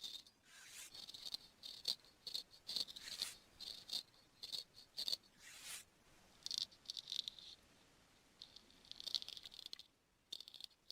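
Quick, scratchy scraping strokes of a barber's ear-grooming tool working at the ear, in runs with short pauses.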